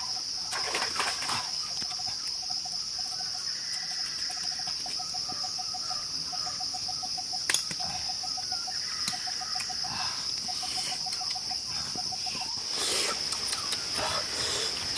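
Steady high-pitched insect drone, with repeated short runs of rapid, lower pulses. There is a single sharp click about halfway, and noisier handling-like sounds near the end.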